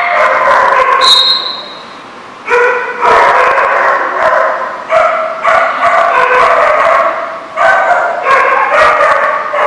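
Dogs play-barking in quick, overlapping volleys, with a short lull a little over a second in.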